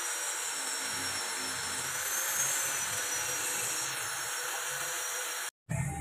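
Angle grinder grinding a leaf-spring-steel blade to sharpen its edge: a steady high whine over grinding noise, its pitch wavering a little under load, cut off abruptly near the end.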